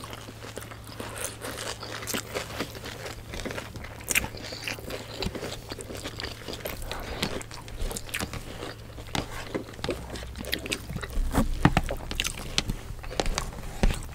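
Close-up eating sounds: crunching bites of crispy fried lumpia (spring rolls) and wet chewing of pancit bihon noodles, a dense run of short crackly clicks that gets busier near the end, over a steady low hum.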